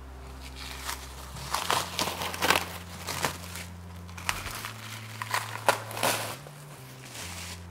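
Plastic cling film crinkling as it is peeled off a glass mixing bowl, in a run of irregular crackles lasting a few seconds.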